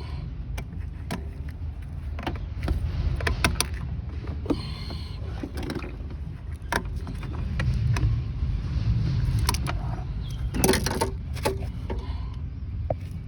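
Hand work in an engine bay: scattered sharp clicks, taps and clinks of tools and hose clamps being handled, with a denser run of knocks a little before the end, over a steady low rumble.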